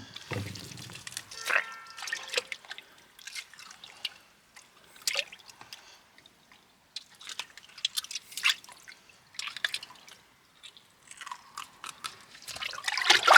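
Knife cutting open and gutting a mackerel: intermittent wet squelching and crunching with scattered small clicks, and a louder wet burst near the end.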